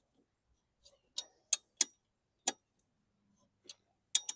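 Wrench tightening the blade bolts on a mower's underside: sharp metallic clicks, about six at uneven intervals, two of them close together near the end.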